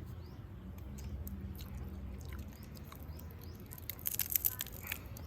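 Grilled prawn head being bitten and chewed, with scattered faint clicks and a cluster of crackling shell about four seconds in, over a low steady hum.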